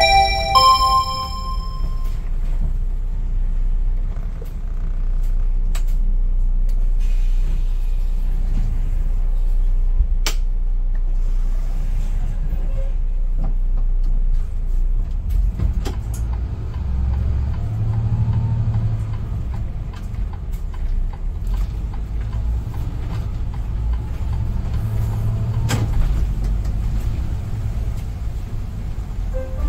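City bus driving, a steady low engine and road rumble heard from inside the front of the bus, with a few sharp clicks and rattles. A short electronic chime fades out in the first two seconds.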